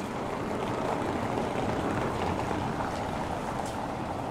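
A car driving past on a cobbled street: its tyre noise on the setts swells and then fades, over a steady street hubbub.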